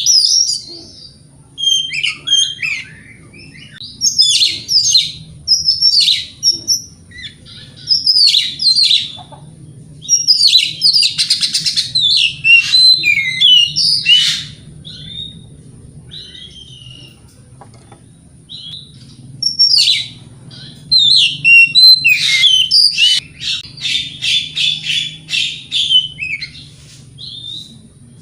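Oriental magpie-robin singing in bursts of varied, high whistled and chattering phrases with short pauses, including a run of fast repeated notes near the end. A faint steady high whine and a low hum sit underneath.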